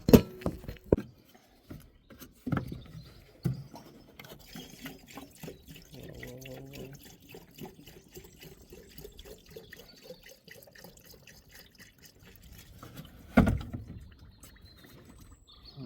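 Liquid being poured and trickling, with a few sharp knocks near the start and one loud knock near the end.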